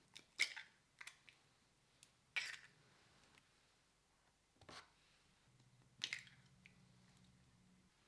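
Eggs being lifted out of a paper-pulp egg carton, scraping and knocking against the cardboard cups in several short, crisp handling sounds.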